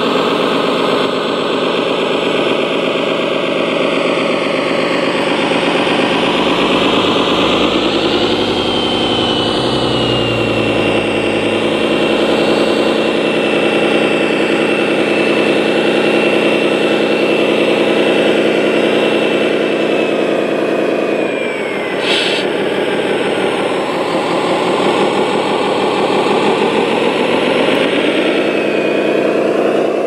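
Radio-controlled scale Caterpillar 777D dump truck running as it drives. The engine sound climbs in pitch about eight seconds in, with a high whine over it that glides down and stops about twenty-one seconds in, where there is a short sharp click. The engine climbs again near the end.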